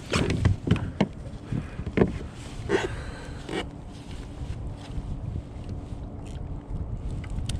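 Several knocks and thumps on a kayak, bunched in the first second and then spaced out over the next few seconds, over a steady low rumble of wind on the microphone.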